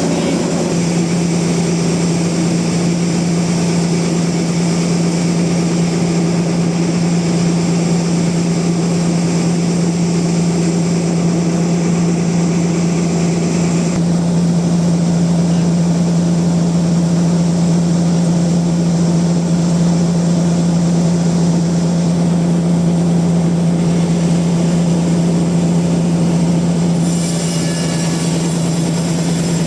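Band sawmill running steadily, a loud constant drone with a strong low hum. The higher hiss drops away about halfway through and comes back near the end.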